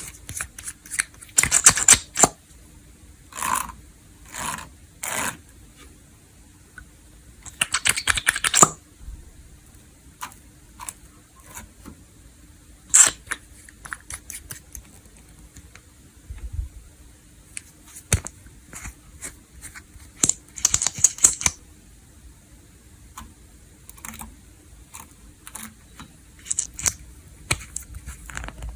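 Crispy slime crackling and popping as hands press and stretch it. Several dense bursts of crackles are spread among single sharp clicks.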